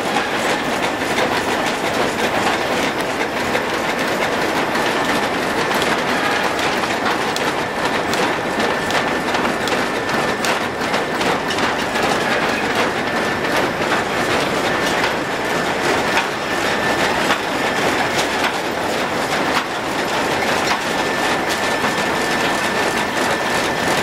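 Belt-and-pulley drive machinery under a steam-powered sawmill running: large flywheel, pulleys and long drive belts turning. The result is a continuous dense clatter of rapid ticks with a thin steady whine.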